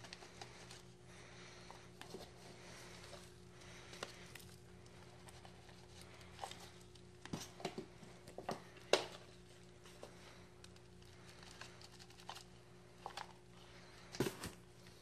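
Potting soil being scooped from a plastic bucket with an old cup and tipped into a plastic nursery pot, then pressed down by hand. Scattered light scrapes, rustles and taps, loudest about nine seconds in and again near the end, over a faint steady hum.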